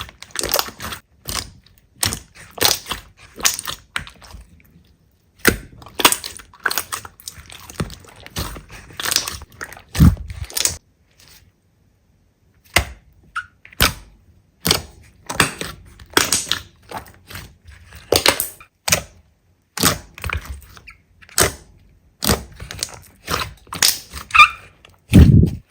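Slime being squeezed, poked and pressed by hand, making quick, irregular wet clicks and crackles in bursts, with two short pauses. A heavier thump comes near the end.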